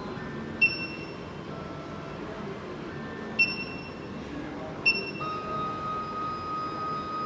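SEC-E9 automatic key cutting machine running its calibration: its motors whine in short steady tones at changing pitches as the decoder moves. There are three sharp metallic clicks that ring briefly, and from about five seconds in a longer steady whine holds one pitch.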